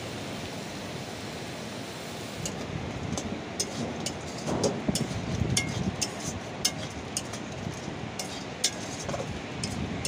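Metal spoon knocking and scraping against a steel wok as crab pieces in sauce are stirred. The sharp clinks start a few seconds in and come irregularly, about two a second, over a steady rushing noise.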